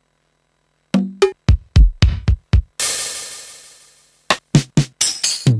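Drum samples on an Isla Instruments S2400 sampler, triggered one after another from its pads: a string of separate, irregularly spaced hits, some deep and kick-like. About three seconds in, a cymbal-like crash rings out and fades over about a second and a half. The sounds begin after about a second of silence.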